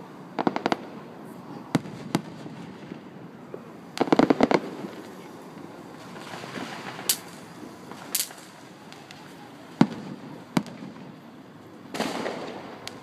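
Aerial firework shells bursting in the distance: scattered single bangs, a quick rattle of cracks about four seconds in, and a longer rumbling burst near the end.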